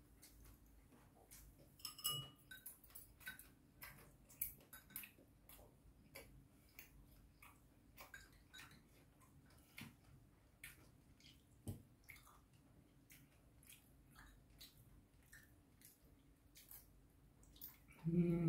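Scattered light clicks and taps of metal chopsticks and a spoon against ceramic bowls and a plate during a meal, one tap about two seconds in ringing briefly. A short burst of voice comes just before the end.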